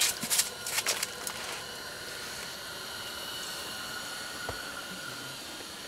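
A few sharp clicks and rattles in the first second and a half as a panfish is lifted out of the ice hole and handled, then a steady faint hiss with a faint high whine and a single soft knock near the end.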